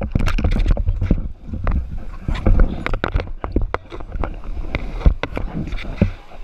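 Scuba gear and fins being handled close to the camera: irregular knocks, clicks and rustling over a steady low rumble.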